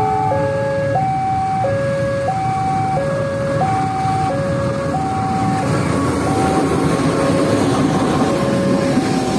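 A two-tone warning alarm sounds a steady, even hi-lo pattern, like a railway crossing signal. Under it, a diesel-electric locomotive and its passenger train run past, and the rumble and rail noise grow louder in the second half as the locomotive draws alongside.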